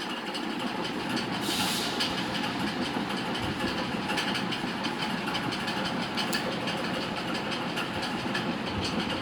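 Steady background rumble and hiss with no speech, with a short burst of hiss about one and a half seconds in and scattered faint clicks.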